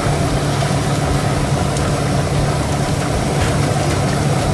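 A steady low engine hum, even in level throughout.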